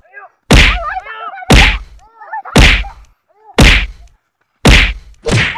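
Six loud punch sound effects in a comedy fight scene, landing about once a second. Short yelps of pain come between the first few blows.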